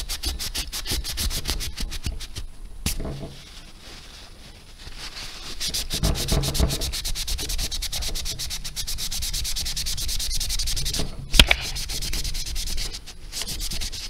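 A turpentine-dampened tissue scrubbed in rapid back-and-forth strokes across the metal base of a graphics card heatsink, wiping off old, dried thermal paste. The rubbing eases off briefly about four seconds in, and there is one sharp knock about eleven seconds in.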